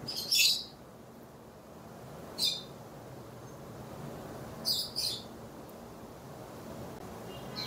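A blended banana and oat milkshake poured from a blender jar over ice cubes into glasses: a faint steady pour, broken by three short, high chirp-like sounds near the start, in the middle and about two-thirds through.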